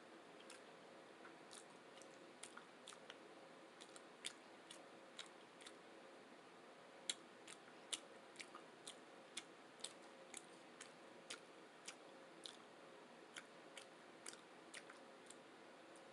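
Close-miked chewing: irregular sharp, wet mouth clicks and smacks, some louder than others, over a faint steady hum.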